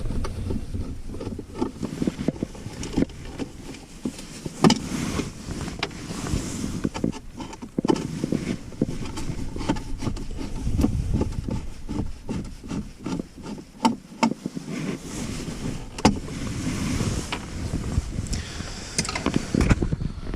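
Hands working on a pickup's plastic center console trim: scattered sharp clicks, knocks and rattles of plastic parts and a screwdriver being handled, over a low rumble.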